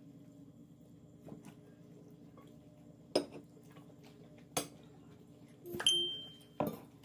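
Forks and ceramic plates clinking: about five separate knocks a second or so apart, one of them ringing briefly with a clear high tone.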